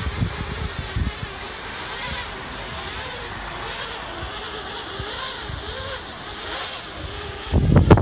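Parrot Bebop 2 quadcopter's four electric motors and propellers buzzing overhead, their pitch wavering up and down as the drone holds position in the wind. Wind buffets the microphone in low rumbling gusts, loudest near the end.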